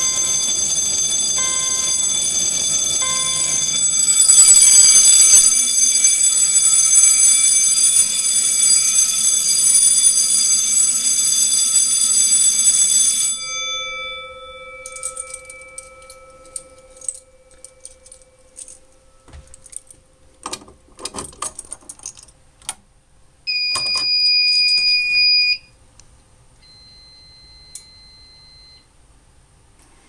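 Gray supervisory fire alarm bell (SUNS CB-6) ringing continuously, with a short beep repeating in the first few seconds. The ringing stops sharply about 13 seconds in, followed by scattered clicks and knocks and a steady electronic beep of about two seconds near the end.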